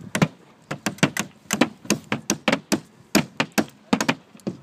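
Two hammers driving roofing nails through underlayment and a metal edge strip into the roof deck. The strikes come as a quick, uneven run of sharp knocks, about four a second, with the two hammers' blows overlapping.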